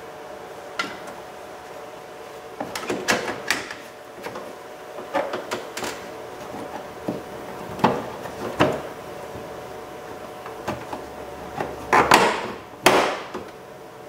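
Plastic door-panel trim on a GMC Sierra pickup being handled and pressed into place: a scattered series of clicks and knocks, with a louder scraping rustle about twelve seconds in. A faint steady hum lies underneath.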